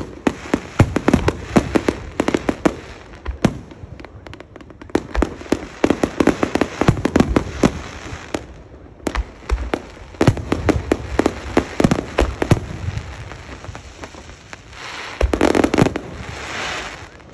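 Fireworks display: rapid volleys of aerial shell bursts and crackling, in dense clusters separated by short lulls. A sustained rushing noise about two seconds long comes near the end.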